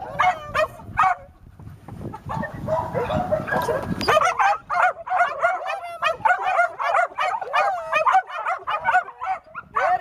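Dog whining and yipping in a rapid run of short high calls from about four seconds in, after a few seconds of quieter rustling.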